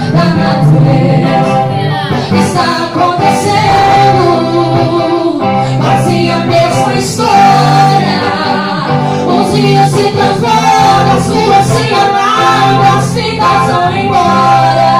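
Gospel song: voices singing over instrumental accompaniment with sustained bass notes.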